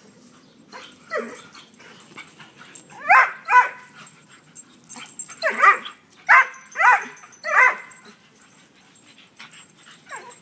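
Dog play barking: about seven short, high-pitched yips, a lone one about a second in, then quick runs of them between about three and eight seconds in.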